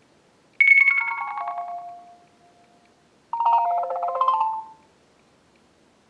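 Two short HTC One (M8) ringtone previews played through a smartphone's loudspeaker. The first, about half a second in, is a run of chime notes stepping down in pitch and fading away. The second, a little past three seconds, is a brief cluster of mid-pitched tones that cuts off suddenly near five seconds.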